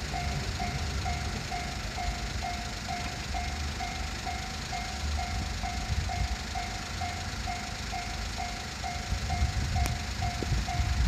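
Japanese railroad crossing bell ringing its steady 'kan-kan' tone at about two strokes a second, over a low rumble that grows louder near the end.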